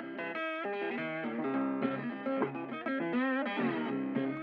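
Guitar-led background music, with a run of changing notes, some of them bent.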